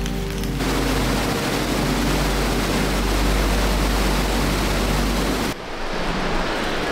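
Steady rush of creek water with a deep rumble underneath. About five and a half seconds in it cuts abruptly to a duller, quieter rush.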